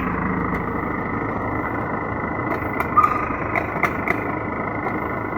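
Fire truck engine idling steadily, with a thin steady whine above it and a few sharp clicks about three to four seconds in.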